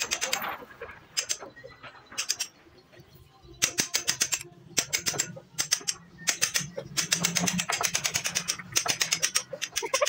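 Hammer tapping a steel wood chisel in quick bursts of strikes with short pauses between, paring out a joint in a hard ulin (Borneo ironwood) beam.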